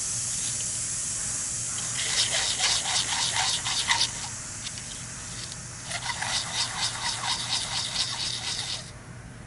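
A small machined die being rubbed back and forth on abrasive paper to sand a face flat: a steady hiss at first, then two runs of quick scratchy strokes, several a second, with a quieter pause between, stopping abruptly near the end.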